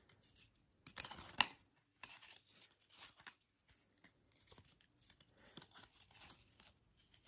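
Trading cards sliding and scraping against each other as a pack is thumbed through by hand: faint, irregular swishes and scrapes, with a couple of louder ones about a second in.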